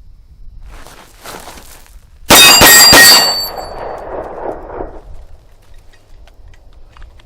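A CZ P-10 C 9mm pistol fired in a quick string of about three shots a little over two seconds in. Metallic ringing follows and fades over the next two seconds.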